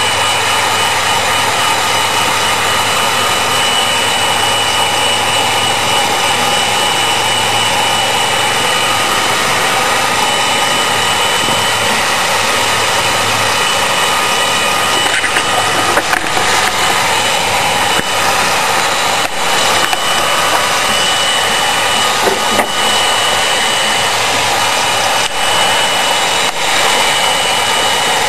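Electric heat gun blowing hot air steadily onto PVC pipe to soften it: an even rush of air with a steady high fan whine and a low hum. A few light knocks come in the second half.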